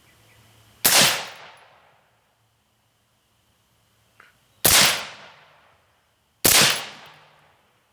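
Three gunshots, each followed by an echo dying away over about a second; the second comes nearly four seconds after the first and the third about two seconds after that.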